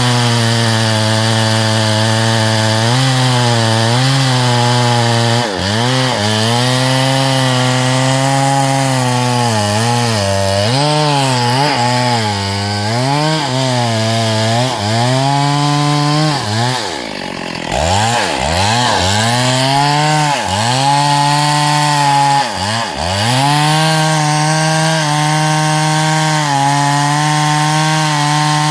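STIHL MS382 two-stroke chainsaw cutting hardwood at high revs. The engine pitch keeps sagging as the chain loads up in the cut and climbing back. About two-thirds of the way in it dips deeply, then revs up again.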